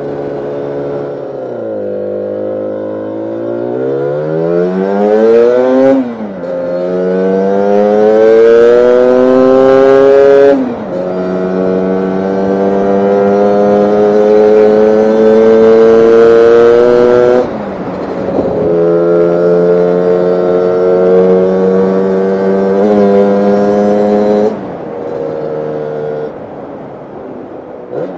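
Lambretta scooter's Targa Twin 275cc twin-cylinder two-stroke engine run hard on the road. The revs climb steeply, drop sharply at gear changes about six and ten seconds in, then hold high, with two more drops later before easing off near the end.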